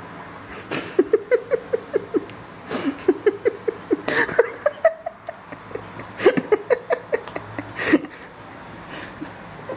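A person giggling in several short runs of quick, repeated laughs, mixed with a few sharp thumps and scuffles as cats leap and swat at a dangled foxtail grass stalk on a wooden floor.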